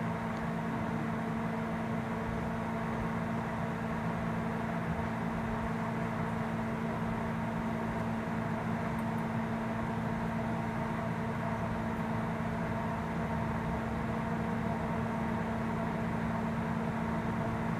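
Steady hum of a small electric motor running at constant speed, unchanging throughout.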